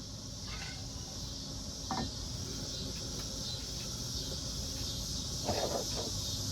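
Steady high-pitched buzz of crickets or other insects, with a sharp click about two seconds in and a short rattle of handling noise near the end.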